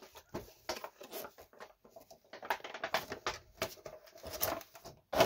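Stiff clear plastic packaging being handled and opened to take out a solid rubber dog-toy bone: a dense run of crackles and clicks, with one louder knock just after five seconds.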